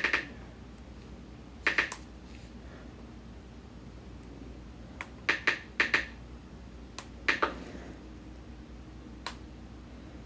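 Sharp, scattered clicks, often two or three close together, coming in small groups a second or a few seconds apart over a low steady background hum.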